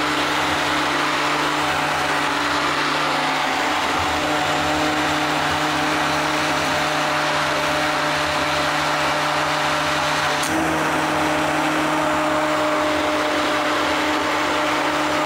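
Hand-held immersion blender running steadily, its blade puréeing thick tomato and roasted red pepper soup in a stainless steel pot: a constant motor hum. About ten seconds in there is a brief click and the pitch steps up slightly.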